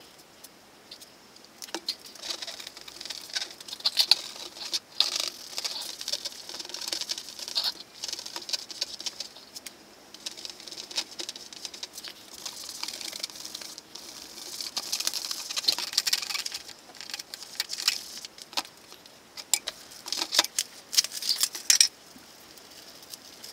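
A rag scrubbing and wiping vinyl boat upholstery panels with vinyl cleaner, in repeated spells of quick rubbing strokes with scattered sharp clicks.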